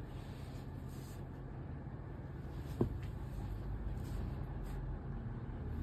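Brocade fabric being handled: soft, faint rustling as lengths of cloth are shifted and unfolded, over a steady low hum, with one light knock about three seconds in.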